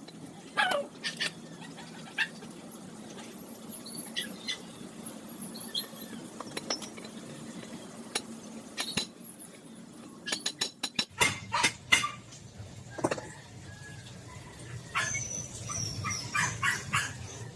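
Metal hinge being tapped and struck with a hammer to peen it so its pin locks: scattered sharp knocks, with a quick run of strikes about eleven seconds in. High chirps sound faintly behind, and a low hum comes in partway through.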